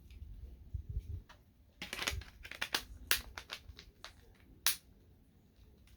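Scattered light clicks and taps of a smartphone and its plastic parts being handled on a work surface, with a cluster of quick clicks in the middle and one sharper click later.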